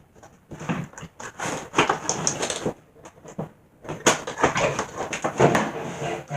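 A knife cutting and scraping at plastic and cardboard packaging, with crinkling and rustling in irregular bursts and a pause of about a second midway.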